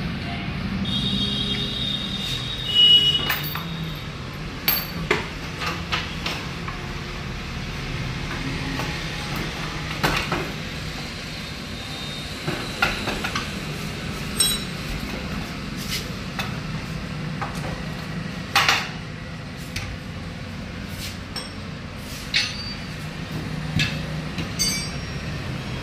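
Scattered metallic clinks and knocks of hand tools on motorcycle parts during dismantling, over a steady low hum.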